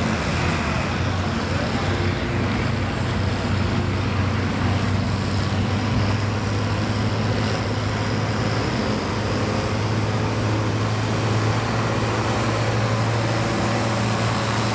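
International farm tractor's engine running hard under load as it drags a weight-transfer pulling sled, a steady, deep engine drone.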